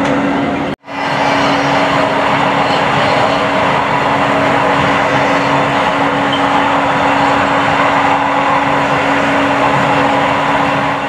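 Running noise heard from inside a moving LRT Jabodebek light-rail car: a steady rush of wheels on track with a constant hum. It cuts out for a split second about a second in.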